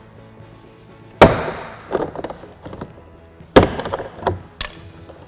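Door trim panel retaining clips on a 2010 Volkswagen GTI popping loose as the panel is pried and pulled off the door: four sharp snaps, the loudest about a second in and just past the middle.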